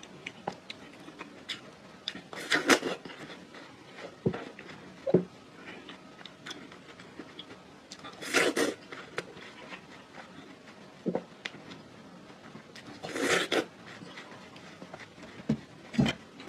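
A person biting into watermelon close to the microphone: three crisp bites about five seconds apart, with small chewing clicks in between.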